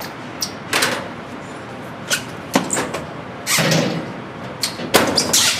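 Countertop microwave door being opened and shut, with several short knocks and clatters of things handled at it.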